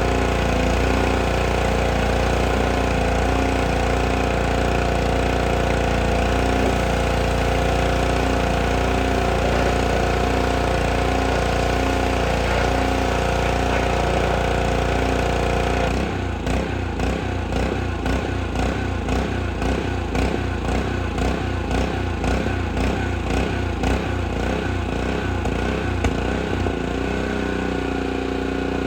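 Honda GCV190 engine of a Craftsman pressure washer running steadily for the first half. About halfway through, the sound turns uneven and pulsing for around ten seconds, then steadies again near the end: the engine surging a little with no load on it.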